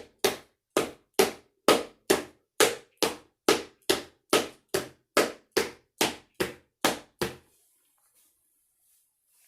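A steady run of about seventeen sharp knocks, a little over two a second, each ringing briefly, stopping abruptly about seven seconds in.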